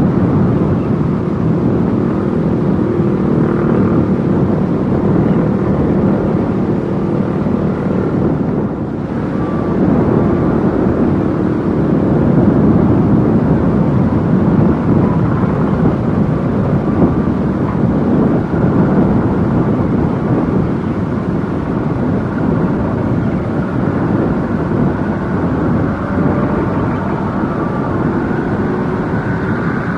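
Komatsu mini excavator's diesel engine running steadily as it digs, with a brief dip in the sound about eight seconds in.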